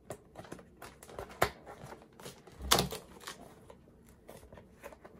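Fingernails clicking and scraping on a stiff cardboard box as someone pries at its tucked-in lid and cannot get it open. There are irregular small clicks throughout, with a louder bump just under three seconds in.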